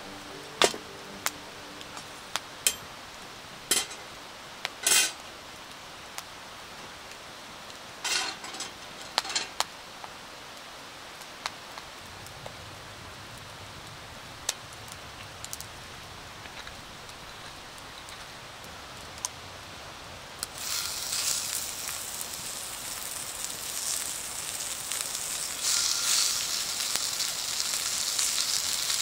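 A few sharp clicks and knocks over a low background, then, about twenty seconds in, loud sizzling starts as pork-belly-wrapped asparagus rolls go into hot oil in a cast-iron skillet, growing louder as more are added.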